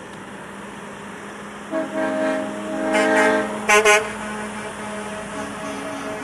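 Semi-truck race-car hauler sounding its air horn: a long blast about two seconds in, then two short loud blasts just before the four-second mark, with the trucks' diesel engines running steadily underneath.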